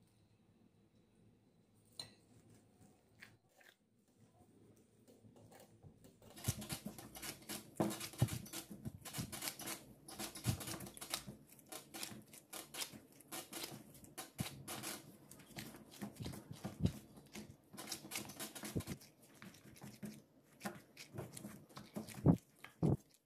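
Hands in gloves kneading soft, wet yeast dough in a bowl: irregular squelching and slapping that starts about six seconds in, with a couple of heavier thumps of the dough near the end.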